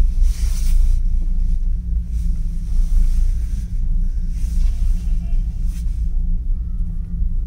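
Steady low rumble and hum inside a moving ropeway cable-car cabin as it travels along the cable. Brief rushes of hiss come about a second in and again near the middle.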